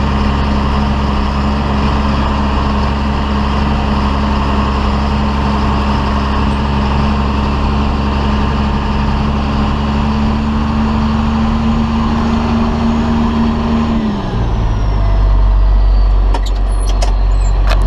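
A John Deere 4455 tractor's six-cylinder diesel engine running steadily at a raised speed, then throttled back about fourteen seconds in so that its pitch drops and settles lower. A few sharp clicks come near the end.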